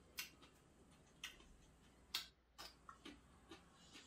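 Near silence broken by faint, irregular sharp clicks, about one or two a second: mouth sounds of chewing a raw mountain-cultivated ginseng root.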